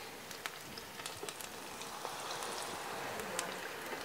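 Tempura-battered grunion deep-frying in hot oil: a steady sizzle with scattered crackles and pops.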